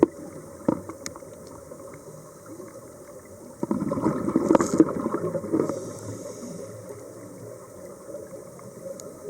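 A scuba diver's regulator breathing heard underwater: a burst of bubbling exhaled bubbles about halfway through, lasting about two seconds, over a steady underwater hiss with a few sharp clicks.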